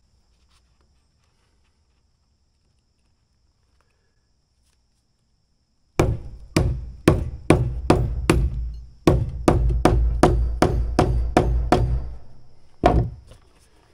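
Hammer pounding a pronged threaded grommet into the canvas of a soft motorcycle saddle bag: after a quiet start, a quick run of about fifteen sharp blows, two or three a second, and one last blow near the end.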